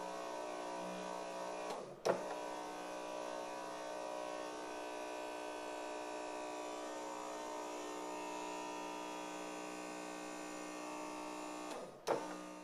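Small DC motors standing in for a Mercedes W124's fuel pumps run with a steady electric whine. About two seconds in and again near the end, their pitch sags as they cut out briefly, and a sharp click follows each time before they run again. This is the MAS relay's fuel pump cutout acting at the simulated red line.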